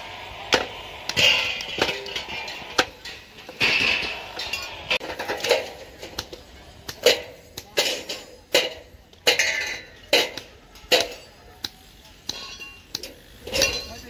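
Steel bars and tools striking concrete and rebar: a run of sharp, irregular clanks and knocks, about one a second, several with a short metallic ring.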